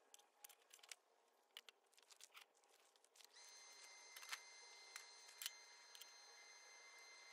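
Light clicks and clinks of metal parts being handled, then a little over three seconds in a steady high electric whine starts up suddenly and holds: a stick welder switched on, ready to weld the cracked clutch fork. Two sharper metal knocks come as the ground clamp and electrode holder are set down.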